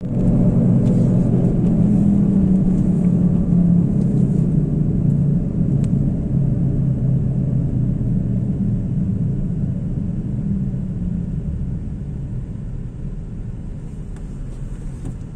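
Steady low rumble of a car's engine and tyres heard from inside the cabin while driving, gradually growing quieter.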